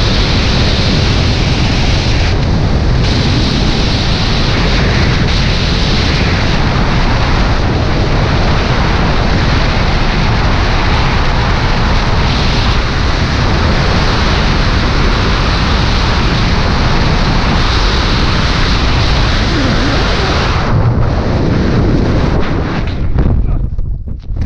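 Heavy wind rushing over the camera microphone during a fast descent under a paraglider-type canopy with its lines twisted. About three seconds before the end the rush eases and turns gusty and uneven.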